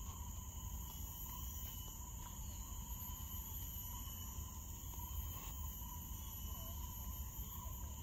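Steady chorus of insects: several unbroken high-pitched drones layered together, over a low steady rumble.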